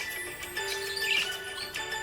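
Background music with steady held notes. A short high chirp sounds about halfway through.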